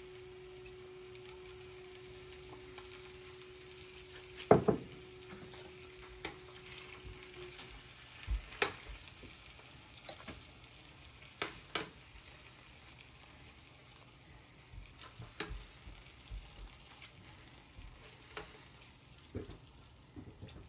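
Sausages sizzling in hot olive oil in a frying pan, a steady faint hiss. Several clinks and knocks of a glass sauce jar and metal tongs against the crock pot break through, the loudest about four and a half seconds in.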